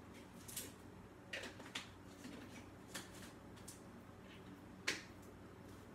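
Faint, sharp clicks, about six spread unevenly over a few seconds, the strongest a second before the end, over a steady low hum.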